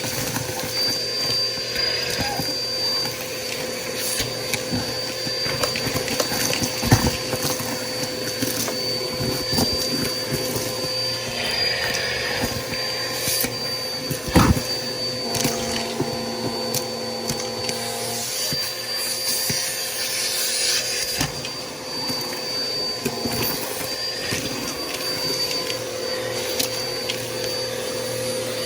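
Bissell PowerForce Helix upright vacuum running with a steady motor whine, with scattered sharp knocks, the loudest about seven seconds in and again about halfway through.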